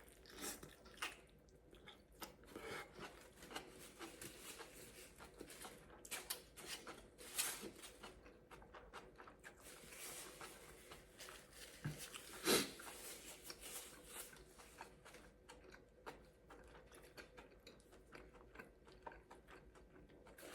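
Faint close-up chewing of a tortilla-wrapped meal: irregular soft wet clicks and smacks of the mouth, with one louder click about twelve seconds in.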